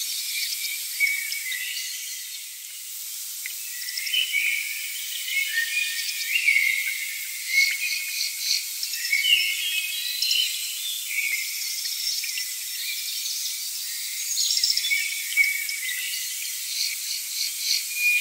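An outdoor chorus of insects and birds chirping: many short, high calls and quick trills overlapping throughout, with nothing low-pitched underneath.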